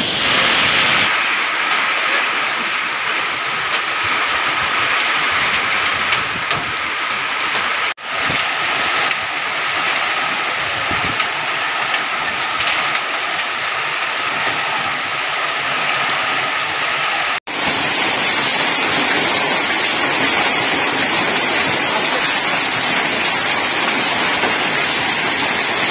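Heavy rain and hail pelting down, a loud steady hiss with scattered sharp hits. The sound breaks off abruptly and changes character twice, about 8 and 17 seconds in.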